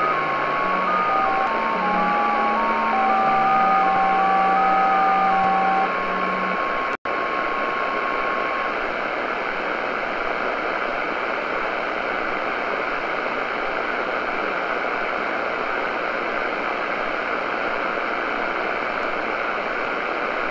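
JT65 digital-mode signals in single sideband on a Tecsun PL-600 shortwave receiver at 7077 kHz. Several overlapping streams of steady tones hop from pitch to pitch, and most stop about six seconds in, with the last one ending near nine seconds. After that only steady band hiss remains, broken by a momentary cut-out about seven seconds in.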